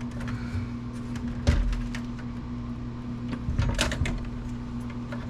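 Clicks and knocks of computer parts being forced and pried while a circa-2000 Apple computer is dismantled, with one sharp knock about a second and a half in and a cluster of clicks near four seconds. A steady low hum runs underneath.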